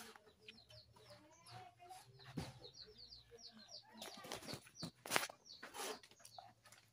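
Faint chickens clucking, with a quick run of short, high, falling peeping calls in the first few seconds. Rustling knocks from the phone being handled in the second half.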